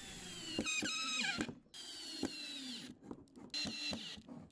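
Ryobi cordless drill driving screws into timber: the motor whines in three short runs, its pitch sagging as each screw bites, with small clicks between runs.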